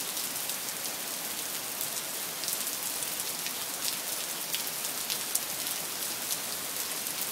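Heavy rain falling steadily, a continuous hiss with many individual drops ticking close by.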